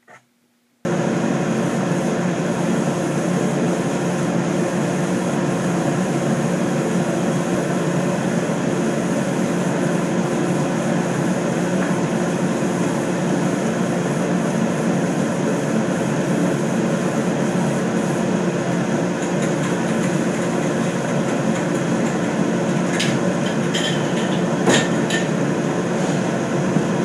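Loud, steady machine drone with a constant hum, starting abruptly about a second in, with a few sharp clicks near the end.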